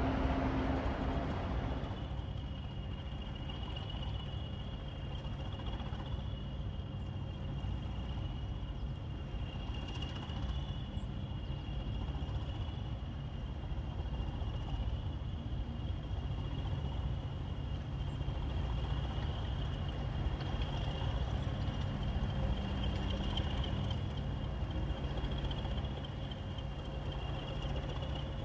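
Class 20 diesel-electric locomotives' English Electric engines running as the locomotives move slowly. The engines give a steady low rumble with a steady high whistle over it.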